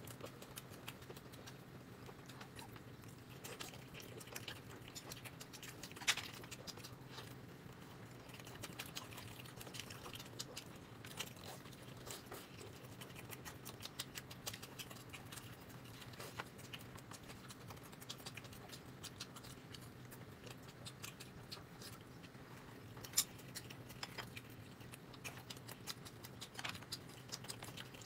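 Faint close-up eating sounds: soft chewing and small scattered clicks of utensils, with two sharper clicks about six seconds in and again near the end, over a low steady hum.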